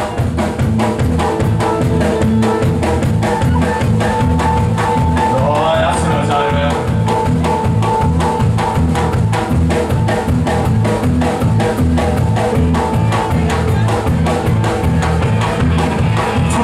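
Live rock band playing a very fast number: a drum kit keeps a rapid, even beat under bass and electric guitar. A high note comes in with an upward slide and is held for several seconds near the middle.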